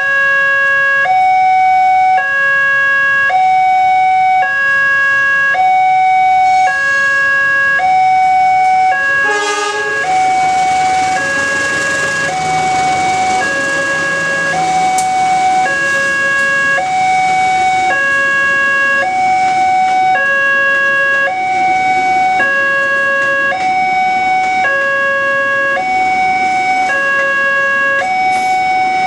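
Indonesian railway level-crossing alarm sounding from its pole-mounted loudspeaker: an electronic two-tone signal alternating a lower and a higher tone about once a second, warning that a train is coming. About 9.5 s in, a short blast from the arriving CC 201 diesel-electric locomotive's horn is heard, and then the steady rush and rumble of the passing train runs under the alarm.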